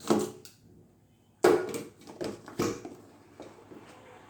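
A Vivo Y19 phone's cardboard retail box being opened and handled: a sharp knock at the start, then a quick run of four or so knocks and scrapes of the box and packaging about a second and a half in.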